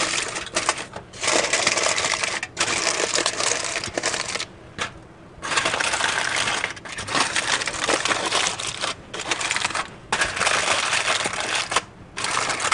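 Aluminium foil crinkling and crackling as hands press and crimp it down into a pie plate over pie dough, lining the crust for blind baking. The crackling comes in several long spells with brief pauses, the longest pause about halfway through.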